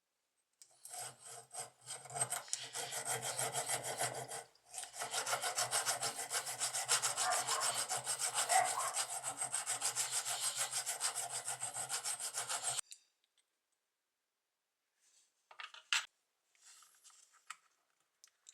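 Rapid back-and-forth abrasive rubbing strokes, hand work during a knife restoration. The strokes pause briefly about four seconds in and stop about two-thirds of the way through. A few faint knocks and handling sounds follow near the end.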